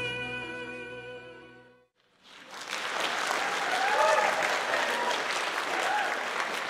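The last held chords of the performance music fade out. After a brief gap, an audience applauds and cheers, with a few voices calling out in the middle of the applause.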